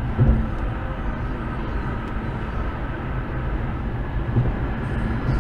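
Steady road noise inside a moving car on a highway: a low rumble of tyres and engine heard through the cabin, with a couple of brief thumps.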